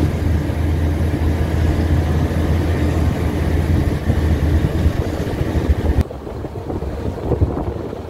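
Steady low vehicle engine drone with road noise, heard from a car travelling close behind a wheel loader. About six seconds in it cuts off abruptly to quieter wind and road noise.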